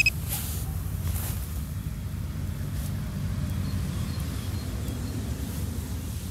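Wind buffeting the microphone as a steady low rumble, with a few faint soft knocks in the first few seconds.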